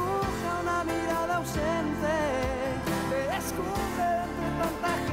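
Closing theme song of a telenovela: a sung ballad in Spanish, a solo voice with vibrato over bass and drums.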